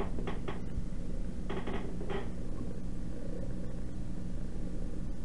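A cat's paw tapping and scuffing against a small camera: a few short scuffs near the start and two or three more a couple of seconds in, over a steady low hum.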